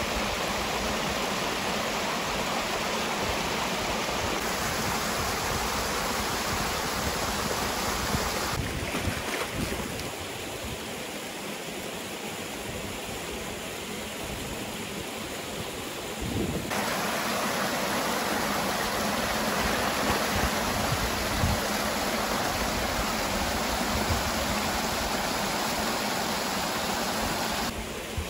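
Rushing water of a mountain river cascading over rocks into pools: a steady rush of noise that grows quieter for a stretch in the middle and changes again just before the end.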